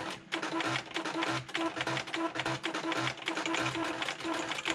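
Fast typing on a Panasonic Penwriter electronic typewriter: a quick run of plastic key clicks, mixed with short repeated pitched buzzes from the machine's pen-plotting mechanism as it writes the characters.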